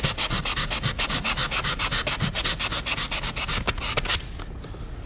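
Sandpaper scrubbing a wooden picture frame by hand: fast, even back-and-forth strokes under firm pressure, sanding dried wood filler off a nail hole. The strokes stop about four seconds in.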